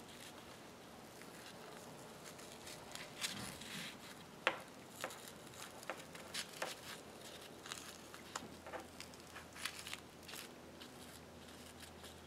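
Fabric ribbon being handled and hand-sewn with needle and thread: faint rustling with scattered soft clicks, the loudest about four and a half seconds in.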